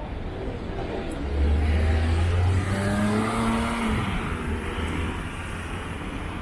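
A motor vehicle driving past close by, its engine hum swelling about a second in, loudest for a few seconds, then fading, over street noise.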